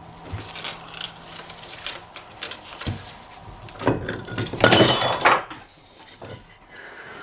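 Metal differential parts clinking and knocking as they are handled, with a louder rattling clatter about four seconds in lasting just over a second.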